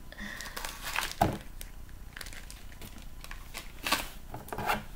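Packaging crinkling and rustling as a boxed stun gun is unpacked by hand, with a few sharp clicks and knocks about a second in and again near the end.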